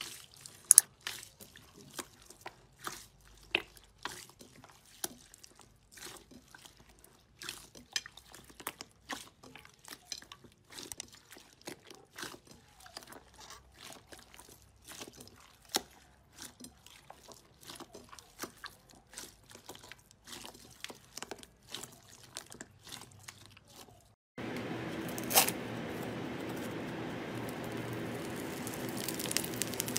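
Clear green slime kneaded and pressed by hand in a glass bowl: irregular sticky clicks and pops with wet squelching. About 24 seconds in it switches to a steady hiss with a few crackles as a foam-bead slime is squeezed.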